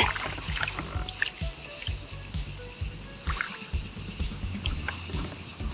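Insects chirring in a steady, high-pitched drone, with a few faint ticks and taps.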